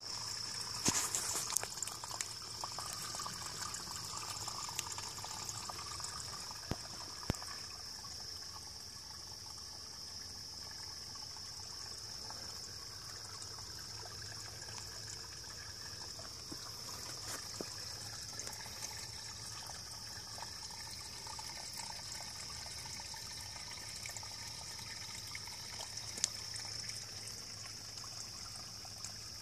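Spring water trickling over rocks into a shallow pool, with a steady high-pitched whine over it and a few light clicks in the first seconds and once near the end.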